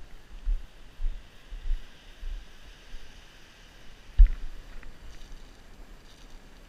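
Footsteps on rock picked up by a body-mounted camera as dull low thumps about every half second, with one heavier thump about four seconds in, over a steady hiss of wind and surf.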